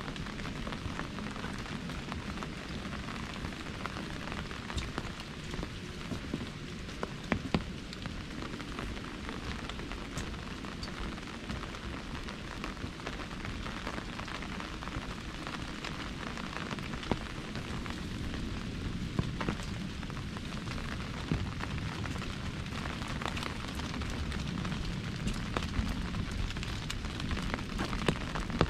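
Steady rain falling on an umbrella overhead: a dense, even hiss of drops, with now and then a single sharper, louder drop hitting the canopy.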